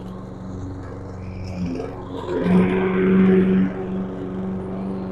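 YardMax 201cc self-propelled lawn mower's engine running steadily while its blade cuts through thick weeds and brush. About two and a half seconds in it gets louder for about a second as the blade chews into the growth. The engine note holds steady, not bogging down.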